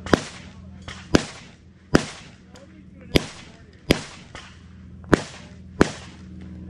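Seven sharp gunshots fired one at a time at an irregular pace, about one a second, with a steady low hum underneath.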